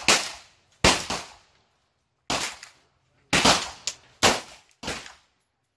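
Gunshots on a shooting range: a string of sharp reports at uneven intervals, each ringing out briefly before it fades.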